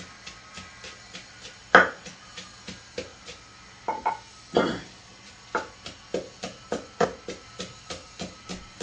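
A wooden pestle pounding chilies and salt in an earthenware mortar for a dipping sauce, in steady knocks about three times a second. A few louder knocks come about two seconds in and again around four to four and a half seconds in.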